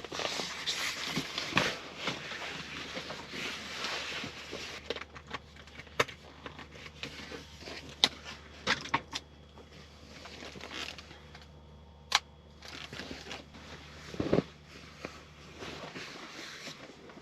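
Rustling and handling noises with scattered sharp clicks and knocks, over a faint steady low hum.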